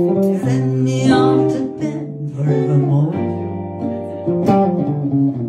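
Live band music: an acoustic guitar strummed in a steady rhythm over sustained keyboard chords.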